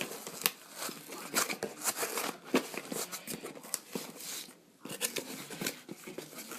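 Packaging being opened and rummaged through by hand: irregular crinkling, tearing and light clicks, with a brief lull about four and a half seconds in.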